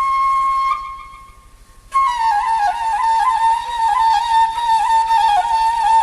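Flute music. A long held flute note breaks off under a second in, and after about a second of near quiet a new flute melody starts abruptly, wavering and ornamented around one pitch.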